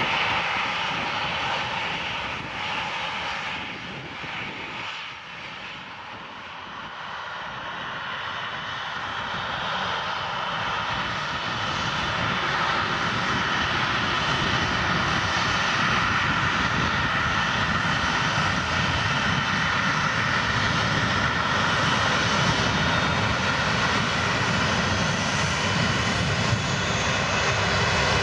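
Airliner jet engines fading over the first few seconds. Then an Airbus A330-300's Rolls-Royce Trent 700 engines build over about ten seconds to takeoff power and hold a loud, steady jet sound with a whine in it as the aircraft starts its takeoff roll.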